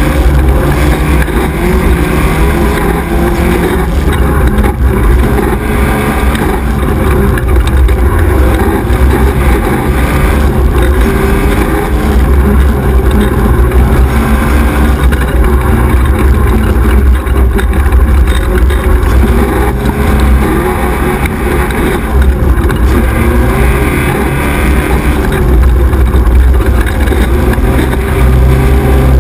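Onboard sound of an XY 1100R 4x4 buggy at race pace on a rough dirt trail: the engine runs continuously, its note shifting up and down with the throttle, over a heavy low rumble and scattered knocks from the chassis.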